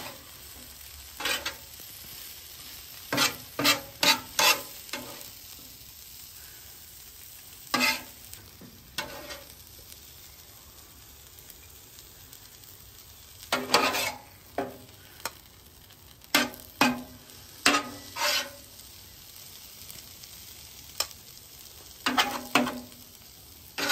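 Metal spatulas scraping and tapping on a flat-top griddle's steel surface as stir-fried noodles, vegetables and chicken are tossed and scooped, in irregular clusters of sharp strokes. Under them, a low steady sizzle of food frying on the hot griddle.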